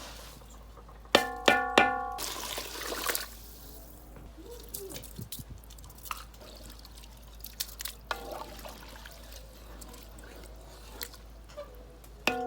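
Metal cookware struck three times, each strike ringing on, then a short splash of water, followed by scattered small clinks and taps.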